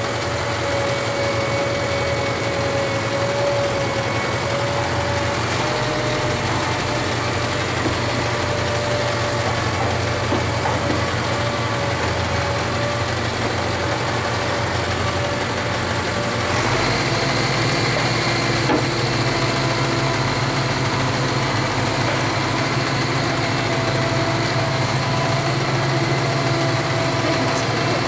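Tractor engine running steadily under the load of a feed mixer wagon unloading feed from its side discharge chute. The machinery's note changes a little over halfway through.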